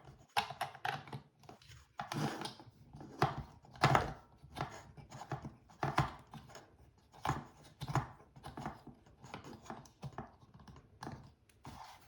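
Irregular plastic clicks, taps and rattles as a small action camera is fitted and secured into the mount of a plastic pistol-grip tripod, with the sharpest knock about four seconds in.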